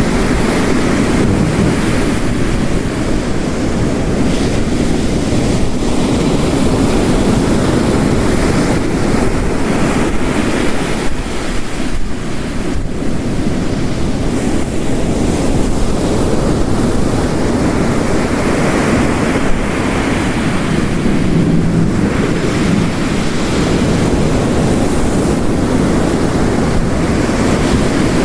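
Dense, steady wash of heavy rain layered with ocean waves breaking on a rocky shore, swelling near the start and again about two-thirds of the way through.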